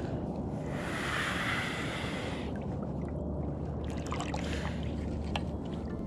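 Steady rushing noise of river water moving close to the microphone, mixed with wind, with a brighter hiss from about a second in to about two and a half seconds in. A few light clicks come near the end.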